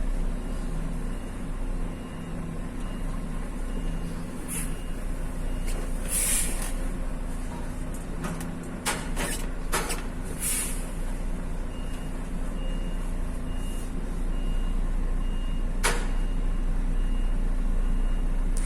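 Motor vehicle running steadily, with a high beep repeating about twice a second for several seconds at a time, and a few short hisses in the middle.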